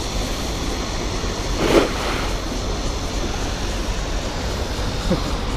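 Steady rush of a shallow, rocky stream running through rapids, with a short splash about two seconds in as a thrown cast net lands on the water.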